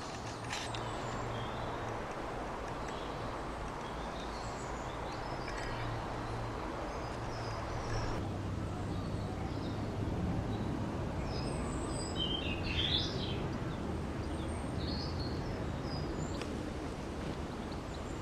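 Small garden birds chirping and calling in short scattered notes, busiest about two-thirds of the way through, over a steady low background rumble.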